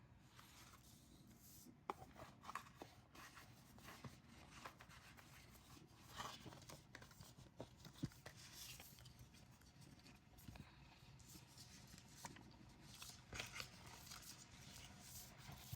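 Faint handling of an album's paper and cardboard packaging as it is opened: scattered light taps and clicks with a few brief rustles.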